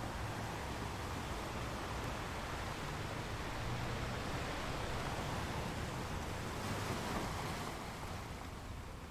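Sea waves washing on the shore, a steady rushing noise with one wave swelling about seven seconds in and easing off near the end.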